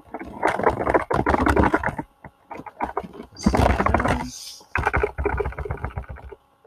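Computer keyboard typing: rapid key clicks in several quick bursts with short pauses between.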